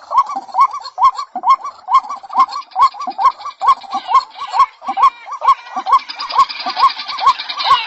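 White-breasted waterhen calling: its 'kru-ak' note repeated about twice a second in a steady series, the lure call used to draw in other waterhens. About two-thirds of the way in, a higher, faster chattering joins it.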